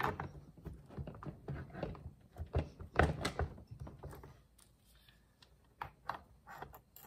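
Large tongue-and-groove pliers clanking and knocking on a stuck Stihl chainsaw sprocket as it is worked back and forth to break it loose. The metal knocks come irregularly and are loudest about three seconds in, with a quieter stretch just after the middle.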